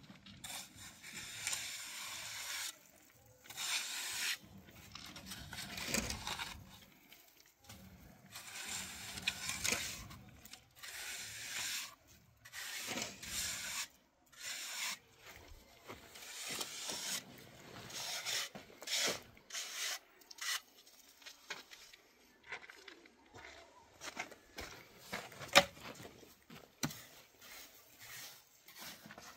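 Irregular scraping and rubbing strokes, each about a second long with short pauses between, and one sharp knock late on.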